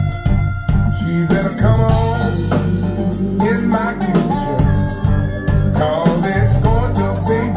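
Music played through a pair of Bowers & Wilkins Formation Duo wireless speakers: a song with plucked guitar and a singing voice that comes in about a second and a half in.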